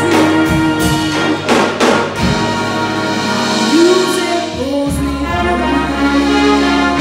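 Live jazz/swing big band playing, with brass section and drum kit, and a choir singing with them. There is a run of sharp drum hits in the first couple of seconds, then sustained brass chords.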